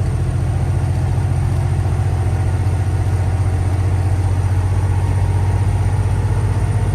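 Semi-truck diesel engine running at a steady drone while the truck is driving, heard from inside the cab and pulling a heavy load of about 43,000 pounds. A faint, steady high whine sits above it.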